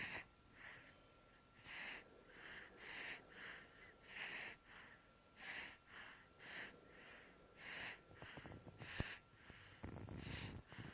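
A drowsy baby's faint heavy breathing: short, noisy, irregular breaths, about one to two a second, with a soft rustle of movement near the end.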